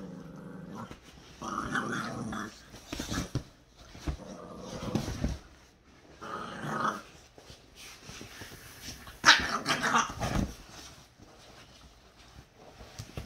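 Dog growling in several short bouts, the loudest about two-thirds of the way in.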